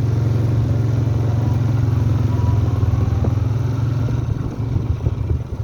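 Farm motorbike engine running steadily, easing off and slowing about four and a half seconds in.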